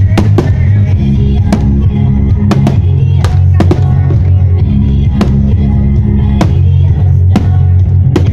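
Loud music with heavy bass plays over a sound system while aerial firework shells burst with sharp bangs about a dozen times at uneven intervals.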